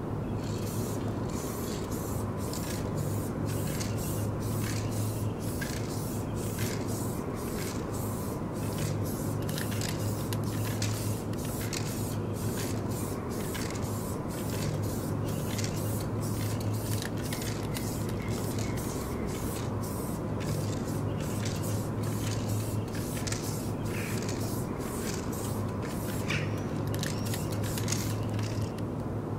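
Short hissing bursts repeating about twice a second, over a steady low hum that swells and eases in stretches of a few seconds.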